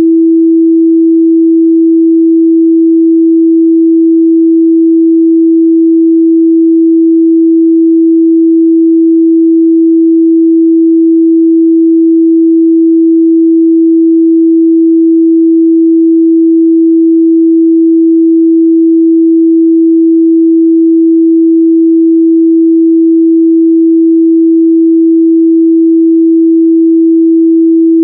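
A steady, loud 328 Hz pure sine tone, a single unwavering midrange pitch with no overtones, played as an audio test signal.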